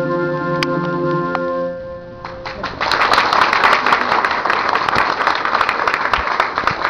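A keyboard with an organ-like tone holds a final chord that stops about two seconds in; about a second later an audience breaks into applause.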